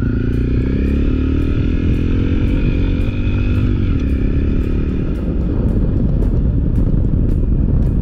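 Honda CRF250L's single-cylinder four-stroke engine pulling away, its revs rising over the first few seconds, then running on at steady speed with wind and tyre noise from the dirt road taking over from about five seconds in.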